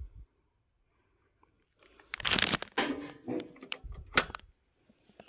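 Rustling, crinkling handling noise from a gloved hand at the fuse box, starting about two seconds in, with a sharp click about four seconds in.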